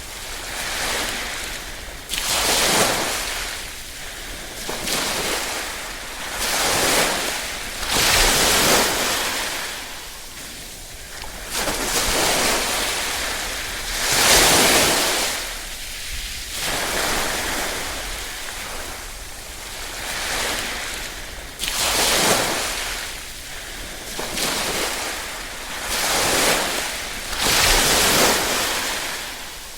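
Small waves lapping on a shore, each ripple washing in and drawing back, one every two to three seconds. It comes as a steady hiss that swells and fades.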